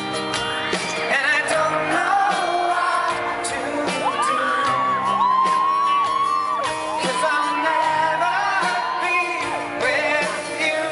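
Live pop-rock band performance: a male singer accompanying himself on acoustic guitar, backed by drums and keyboard, sings a melody with a long held high note in the middle.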